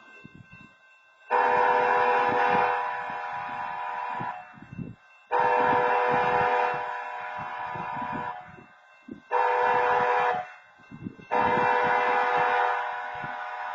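BNSF locomotive horn sounding the grade-crossing signal: long, long, short, long. There are four blasts of a steady multi-tone chord, the last still sounding near the end.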